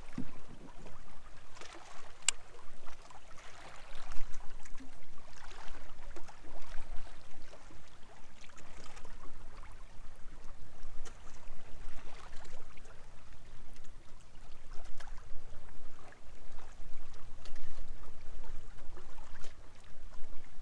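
Small waves lapping and splashing against the hull of a pedal fishing kayak, in uneven washes. One sharp click about two seconds in.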